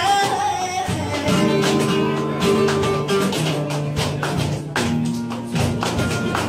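Flamenco bulerías played live on a Spanish guitar, with rhythmic hand clapping (palmas) striking through it.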